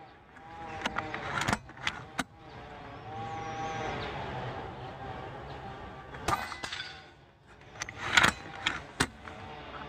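Kral Puncher Empire .22 PCP bullpup air rifle being shot and cycled during a five-shot group: a string of sharp clicks and clacks, the loudest about eight seconds in. A background hum swells and fades between about three and six seconds in.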